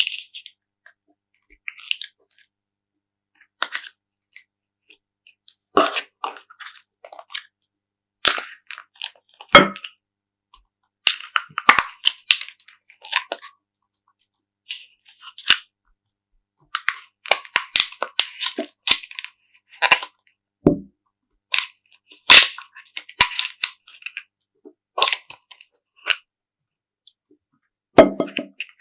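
Slime being worked by hand, giving irregular sharp crackles, pops and clicks in short clusters with quiet gaps between them.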